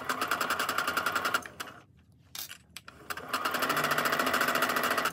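Brother computerised sewing machine stitching a seam in two runs: fast, even needle strokes for about a second and a half, a pause of about two seconds with a couple of small clicks, then stitching again from about three seconds in.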